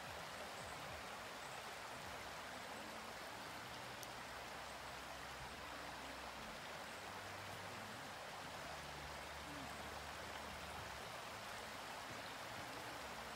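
Shallow, rocky creek running steadily over stones.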